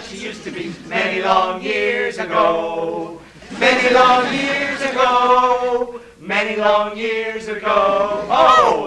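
Four men singing together a cappella, holding long notes in three phrases with short breaks between them, the last ending in a swoop of pitch.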